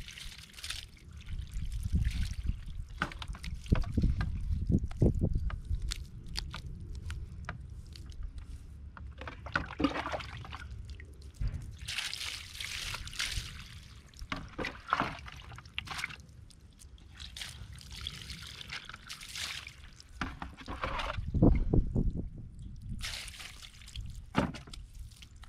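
Water being poured and splashing over a puppy's coat during a bath, in uneven bursts with three longer gushes in the second half, over low rumbling and knocking handling noise.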